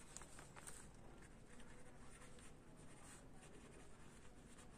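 Faint scratching of a pen writing on notebook paper, in short irregular strokes.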